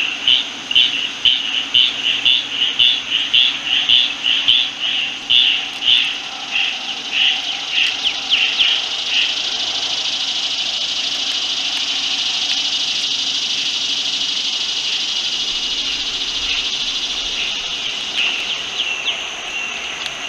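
Insect song: a high pulsed call, about two or three pulses a second, that gives way about nine seconds in to a steady high buzz.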